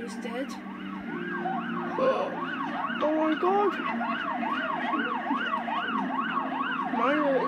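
Several emergency-vehicle sirens wailing together, one cycling fast at about two and a half sweeps a second over slower wails, heard through a TV speaker. A voice cries out briefly in the middle.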